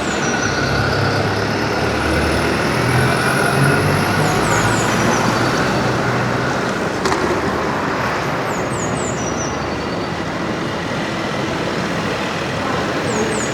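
Busy city street traffic: a steady wash of vehicles and street noise, with a heavy vehicle's engine rumbling low through the first half.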